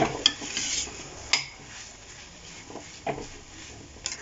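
Metal spatula scraping and clinking against a stainless steel kadai as a thick fried mushroom masala is stirred, in irregular strokes, with the sharpest clink right at the start.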